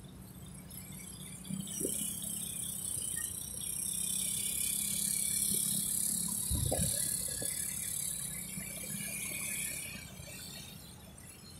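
Street traffic heard from a moving motorcycle: a steady low engine hum with a few light knocks, under a high shrill hiss that swells about two seconds in and fades away near the end.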